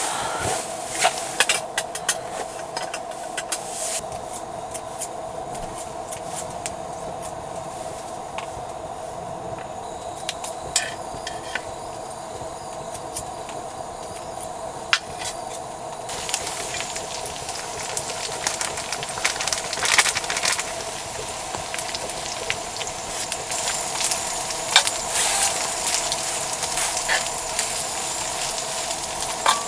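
Steady sizzling with scattered crackles and pops, in the manner of food frying in a hot pan; the sizzle grows stronger about halfway through.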